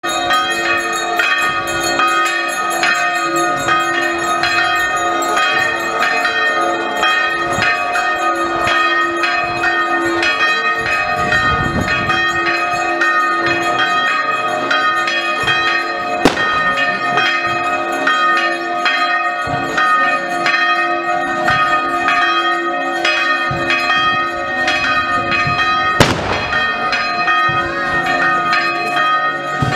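Church bells ringing a continuous peal, many overlapping strikes and ringing tones. Two sharp bangs stand out, about 16 seconds and 26 seconds in.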